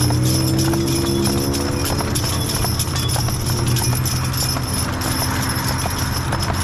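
Hooves of a pair of Belgian draft horses clip-clopping on asphalt at a walk, with harness chains jingling, over a steady low hum of road traffic that fades about halfway through.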